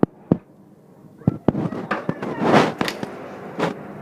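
A series of sharp, irregularly spaced pops, about half a dozen, with a longer noisy burst about two and a half seconds in.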